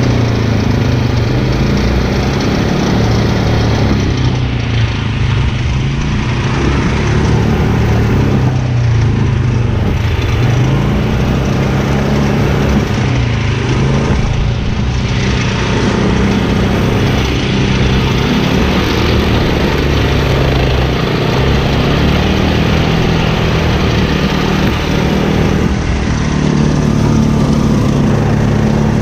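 Engine of a pull-behind brush mower running steadily under load while cutting tall grass, its pitch wavering a little.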